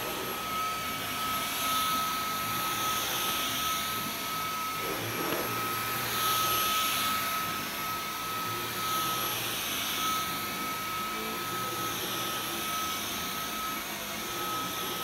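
Dyson V11 Torque Drive cordless stick vacuum running in auto mode at its higher carpet power, with a steady high motor whine. Its rushing hiss swells and fades every second or two as the high-torque brush head is pushed back and forth over a rug.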